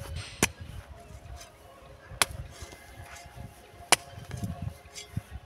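Garden hoe chopping into soil three times, each a sharp strike, about two seconds apart, with soil scuffing between strikes.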